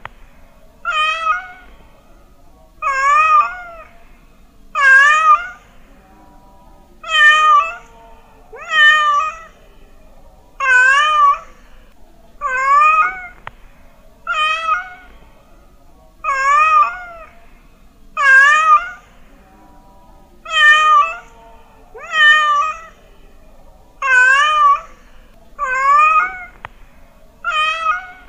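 Domestic cat meowing over and over, about one meow every two seconds, each meow wavering up and down in pitch.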